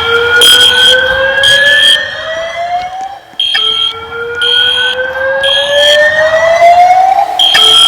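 Siemens fire alarm system sounding: a slow whoop tone that rises in pitch over about three and a half seconds and starts again, over a high beep pulsing in groups of three.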